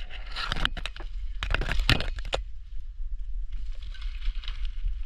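Kayak being paddled through water: two bursts of crackling and scraping in the first couple of seconds, then a softer swish of water, over a steady low rumble.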